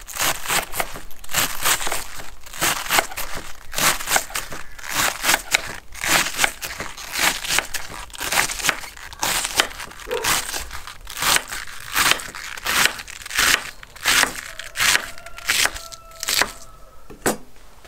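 Chef's knife slicing a drumhead cabbage finely on a wooden chopping board, cut after cut at about two or three a second. It is the sound of a cabbage that is still fresh and firm.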